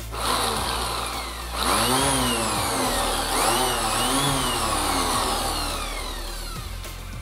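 Stanley FatMax FME440K 480 W random orbital sander running freely off the work. It starts just after the opening and gets louder about a second and a half in. Its motor whine rises and falls in pitch a few times, then slides steadily lower as it winds down over the last few seconds.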